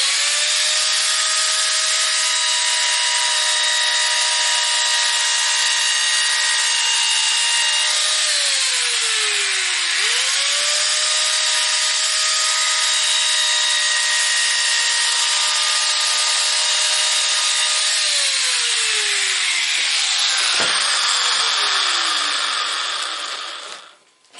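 Handheld electric mini saw cutting lengthwise along a laminate parquet plank to trim off its tongue, the motor running at a steady whine over the cutting noise. About eight seconds in, the motor slows and winds down, then spins back up to speed; a few seconds before the end it is switched off and spins down slowly, with a single knock as it winds down.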